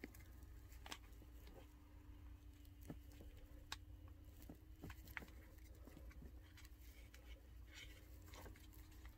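Faint, scattered small plastic clicks and scrapes as a small flathead screwdriver pries at the seam of a removed HVAC blend door actuator's plastic housing, over a faint steady hum. Near silence overall.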